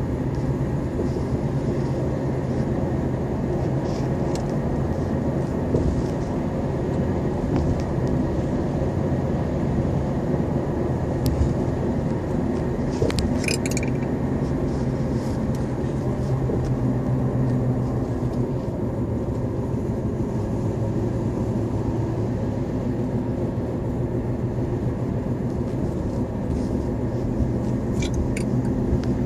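A steady low rumble, with a couple of brief clicks about halfway through and again near the end.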